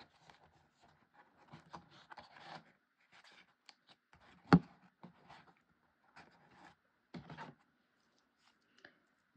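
Stiff brown paper being handled and pressed into place, with short rustles and scrapes of paper against paper. One sharp knock about halfway through.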